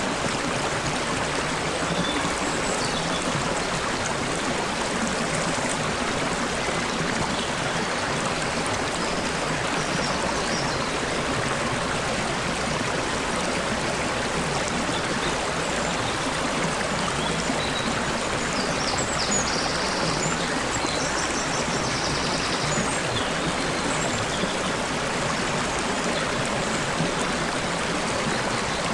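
Water in a stream flowing and trickling steadily, with a few faint high bird chirps about two-thirds of the way through.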